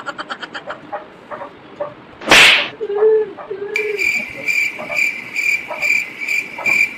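A small brass puja hand bell being rung steadily, about three strikes a second, from about four seconds in. Before it, about two seconds in, there is a short loud hiss.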